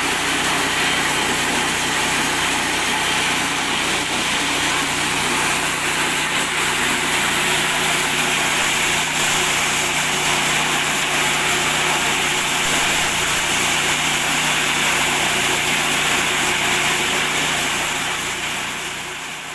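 Small engine driving a mini corn sheller, running steadily under load as corn cobs are fed through, with a dense continuous noise from the threshing. It fades out near the end.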